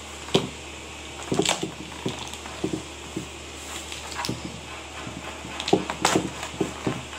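Irregular light knocks and clicks, about a dozen in all, with sharper ones just after the start and about six seconds in.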